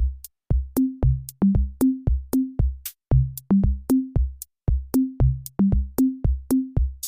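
Background music: a drum-machine beat of short, low, punchy hits repeating in a steady pattern, with brief breaks in the rhythm.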